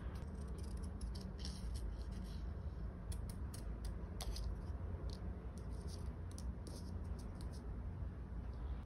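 Small scissors snipping through a printed photo on paper: a scattered run of short, crisp clicks and snips, over a low steady hum.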